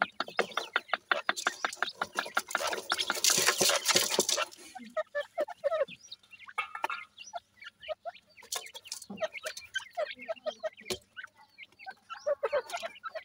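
Gravel rattling and scraping as a hand stirs it for the first few seconds, then soft clucks and short chirping calls from a francolin (teetar) hen and her chicks, with scattered pecking clicks on the gravel.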